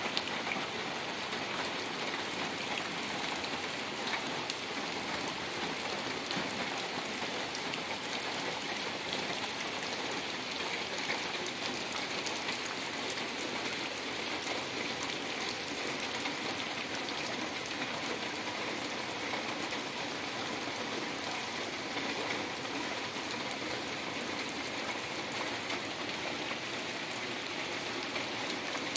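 Heavy rain falling steadily onto floodwater, the drops hitting the water surface in a dense, even patter.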